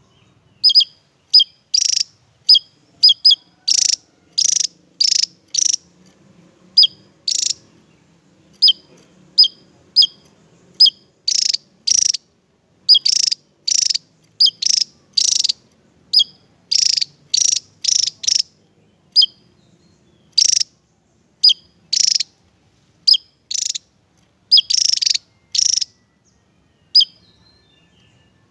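Javan tesia singing: a long run of short, high, sharp chirps mixed with slightly buzzier notes, about one or two a second with brief pauses.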